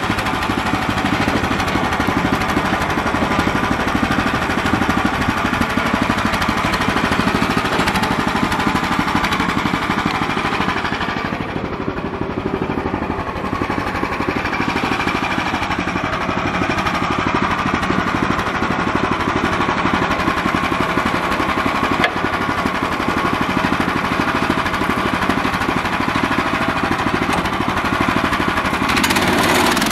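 Gas engine of a Central Machinery band sawmill running steadily, its band blade cutting through a pine log. The high hiss dips for a couple of seconds about eleven seconds in, then comes back.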